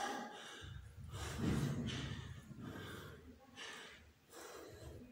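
A man breathing hard during a bodyweight workout, with about five heavy breaths roughly a second apart.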